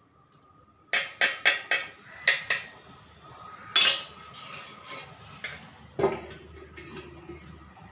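Metal kitchenware knocking together as a steel strainer and pouring vessel are handled over a metal kadai: a quick run of about six clinks, then a louder knock a little later and one more clink near the end.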